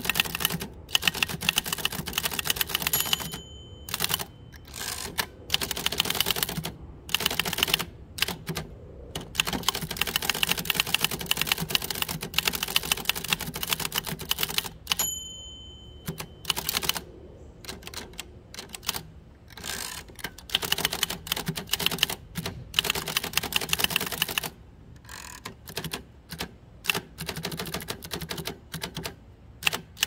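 1949 Adler Favorit 2 thrust-action manual typewriter typed on steadily: a rapid run of key strikes and typebar clacks broken by short pauses. A brief ringing tone sounds twice, about three seconds and fifteen seconds in, each followed by a short lull; this fits the machine's margin bell at line end.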